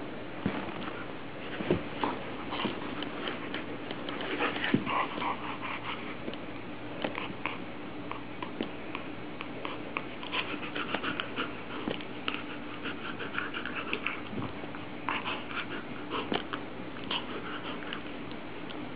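A German Shepherd and a small puppy play-fighting over a tennis ball: irregular short dog vocal sounds mixed with scuffling, in many brief bursts.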